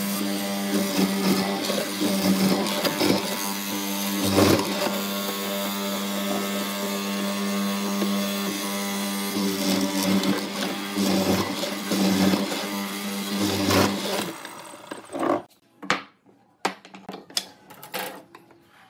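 A power tool's electric motor running at a steady speed, then stopping near the end, followed by a few sharp knocks and clicks.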